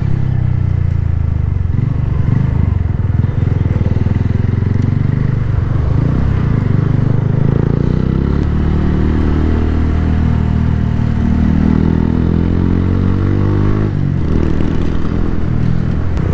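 Motorcycle engine running while riding, its pitch rising and falling as the throttle changes.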